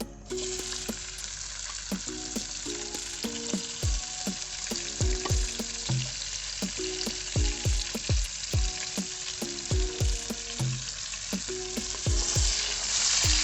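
Diced onion frying in hot cooking oil in a pan: a loud sizzle that starts suddenly just after the start and swells near the end.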